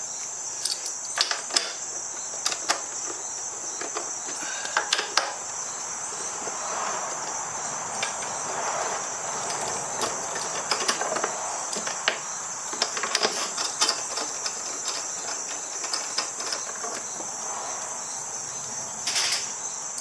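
Steady high-pitched insect buzz, with scattered clicks and knocks of hand tools and plastic body parts as a scooter is taken apart.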